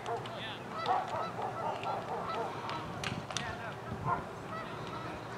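Rapid, repeated honking calls, several a second, with a couple of sharp cracks about three seconds in.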